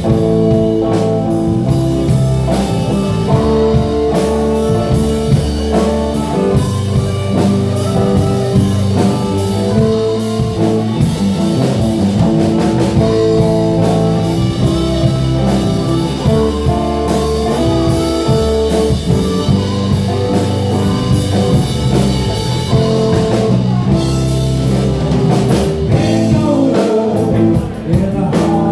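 Live blues band playing: guitar with bass and drum kit, long held notes over a steady rhythm.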